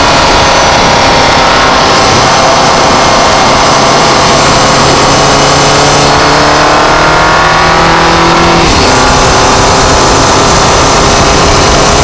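Volkswagen GTI's turbocharged 2.0-litre four-cylinder engine accelerating, breathing through an APR Carbonio intake, with a thin high turbo whistle above the engine note. The engine pitch climbs for several seconds, then drops suddenly about nine seconds in.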